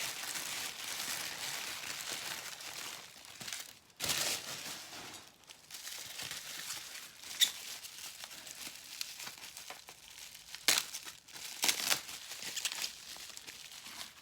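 Paper wrapping crinkling and rustling as a small, heavy item is unwrapped by hand, with a few sharper crackles in the second half.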